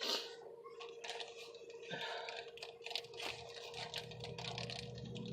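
Rapid small clicks and crackles close to the microphone. About two-thirds of the way through, a motorboat's engine comes in as a low, steady drone.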